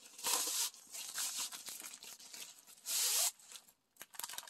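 Packaging being handled as a bubble mailer is opened and the paper-wrapped rolled canvas is pulled out: two short bursts of tearing and crinkling, each about half a second long, near the start and about three seconds in, with faint rustling between.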